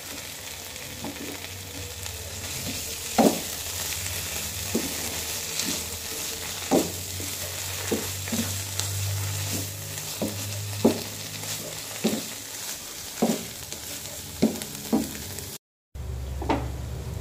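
Spinach with potatoes and green beans sizzling in a non-stick frying pan while a wooden spatula stirs it, knocking and scraping against the pan about a dozen times. The sound cuts out for a moment near the end.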